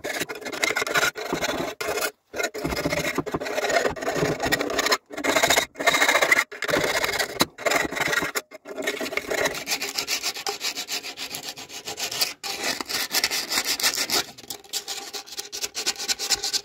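Hand file rasping on the freshly cut, notched end of a metal exhaust pipe to deburr it. Runs of fast back-and-forth strokes are broken by a few short pauses, then the filing goes on more steadily.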